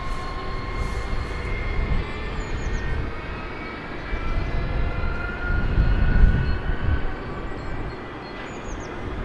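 A train running past, with a steady whine over a low rumble that swells to its loudest about six seconds in and then eases.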